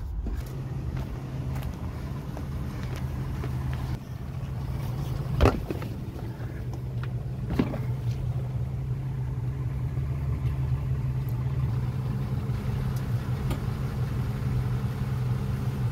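Steady low engine hum, with two sharp knocks, one about five and a half seconds in and one about seven and a half seconds in.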